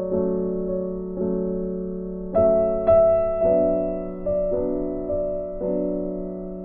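Slow background piano music: chords struck about once a second and left to ring out.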